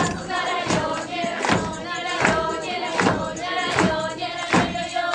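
Group of voices singing to music with a steady beat, about four beats every three seconds.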